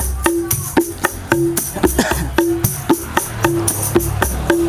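Instrumental break in sholawat music: a steady percussion rhythm of sharp tambourine and drum strokes, about four a second, over a low bass, with a short repeated note about once a second and no singing.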